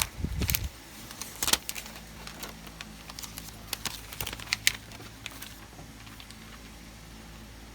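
A string of small, sharp, irregular clicks and taps, as of objects being handled, over a faint steady low hum. The clicks stop about five and a half seconds in.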